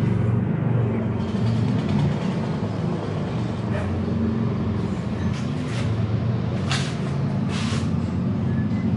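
Motorcycle engine noise at a race paddock: a steady low rumble, with a few brief hisses about two-thirds of the way through.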